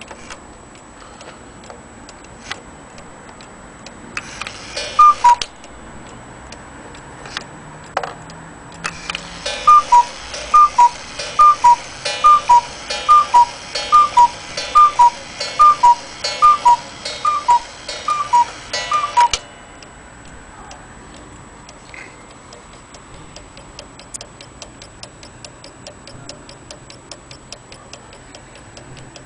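Small German cuckoo clock striking: its two-note cuckoo call sounds once, then about ten times in a row, roughly one call a second, each a higher note followed by a lower one, with the hiss and whirr of the bellows and striking train behind them. The pendulum's tick-tock runs steadily underneath.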